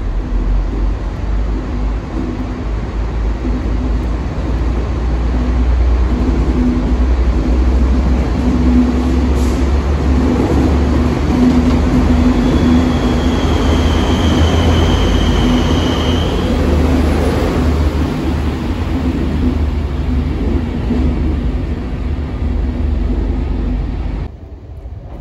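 Network Rail railhead treatment train, diesel-hauled with a rake of tank wagons, passing through an underground station. A steady engine note sits over loud wheel and wagon rumble, echoing in the station. A high wheel squeal comes in for about four seconds midway, then the noise drops away abruptly near the end.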